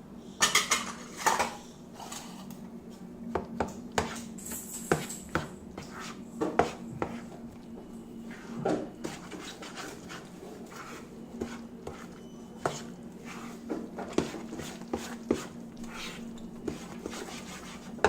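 A spoon knocking and scraping against a bowl in irregular taps, with a few louder clinks about a second in and near the middle, over a faint steady hum.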